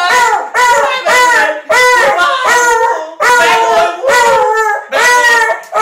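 Beagle crying and howling with its head thrown back: a rapid series of short, high yowls, about two a second, each dropping in pitch at its end. It is the dog's excited crying at its owner being home.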